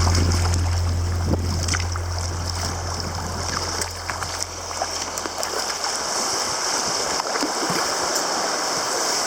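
Sea water washing and splashing, with many small splashes and drips. A low steady tone, the tail of the background music, fades out over the first six seconds.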